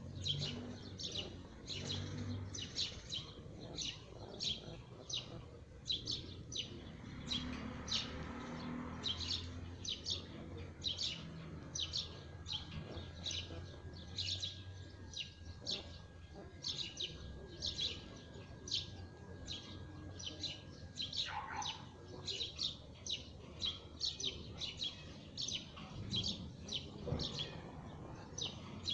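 Canary chirping: short, sharp high notes repeated at about two a second, on and on.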